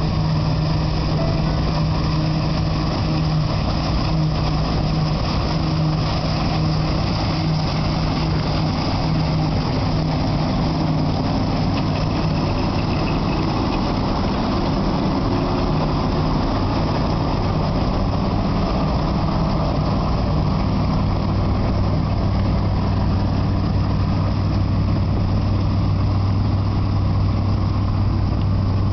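Massey Ferguson 525 combine harvester running steadily while combining wheat: a constant engine drone over the noise of its machinery. About two-thirds of the way through the engine's note drops lower.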